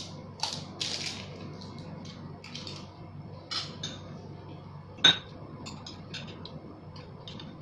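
Tableware handled while eating: light clicks and taps of wooden chopsticks and a spoon against ceramic plates and a rice bowl, with one sharper ringing clink about five seconds in.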